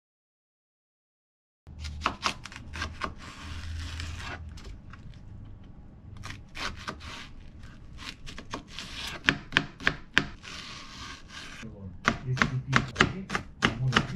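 Kitchen knife cutting a long green onion on a plastic cutting board: sharp knife taps against the board, which settle near the end into fast mincing at about four chops a second. The first second and a half is silent.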